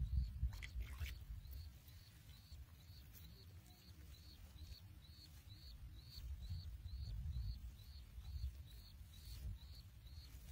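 Low scuffing rumble of damp soil being scooped and pressed by hand around a buried plastic bottle, with a faint high chirp repeating evenly about two or three times a second.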